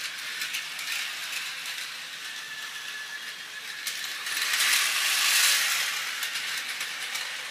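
Battery-powered Plarail Shinkansen toy train running on plastic track: a steady high-pitched motor whir with rattling clicks from its wheels and cars, growing louder for a couple of seconds just past the middle.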